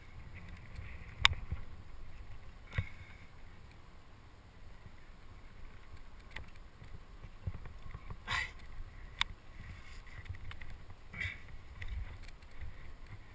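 Low wind rumble on a body-mounted action camera's microphone as a climber moves up granite, with scattered clicks and scuffs from hands, shoes and gear against the rock. The sharpest click comes about a second in, and a longer scrape comes past the middle.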